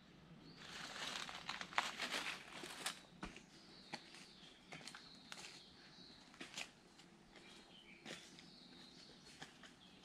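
Footsteps crunching and crackling on dry leaf litter, densest in the first few seconds and then thinning to scattered crackles, with faint high chirps in the background.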